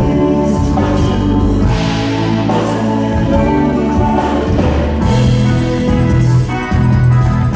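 Live progressive rock band playing at full volume, electric guitar and drum kit over a full low end.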